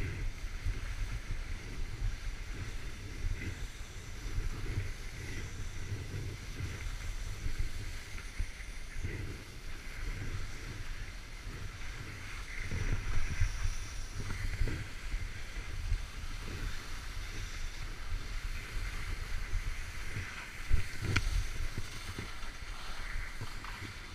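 Wind buffeting a skier's action-camera microphone in an uneven low rumble, over the hiss of skis sliding and scraping on packed snow. A single sharp click comes about 21 seconds in.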